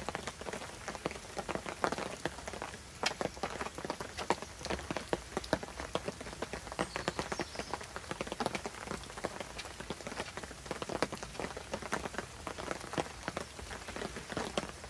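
Small wood campfire crackling with dense, irregular ticks and pops, mixed with the scrape of a knife whittling a wooden stick.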